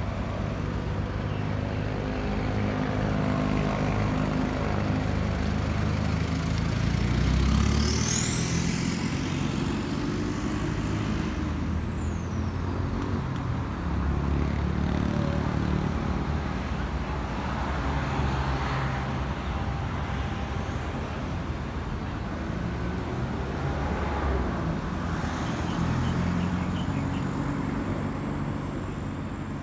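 Boeing 737-800's CFM56 jet engines rumbling as the airliner passes high overhead: a steady low roar, a little quieter near the end. A thin high whine rises about eight seconds in, holds, and falls away a few seconds later.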